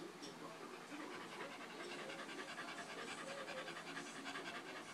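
Small dog panting rapidly and steadily, the fast open-mouthed panting of a dog stressed by fireworks.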